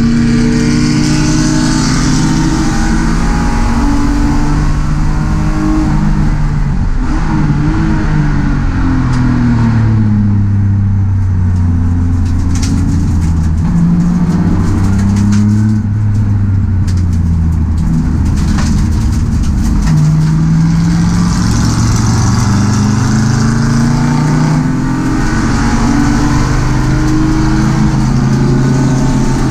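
Race-prepared BMW E36's engine at full throttle, heard from inside its stripped cabin. The revs climb through the gears, drop at each shift, and fall away under braking before it pulls hard again.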